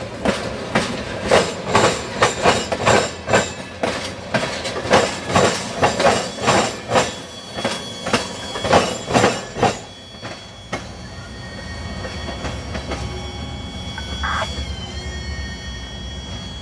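Freight train of tank cars rolling over a railroad diamond crossing: the wheels strike the crossing rails in a string of loud, rapid clacks. About ten seconds in the last car clears and the clacking stops, leaving a lower, steadier rumble from the passing train.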